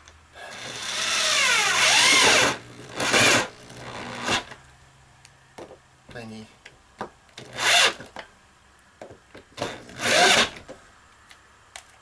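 Corded drill driving bolts through a metal pipe flange into a wooden ceiling beam. It makes one run of about two seconds with the motor pitch rising and falling as the bolt bites, then several short bursts on the trigger.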